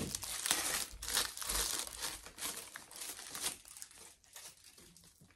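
Packaging crinkling and rustling as it is unwrapped by hand, in a run of quick bursts that die away about four seconds in.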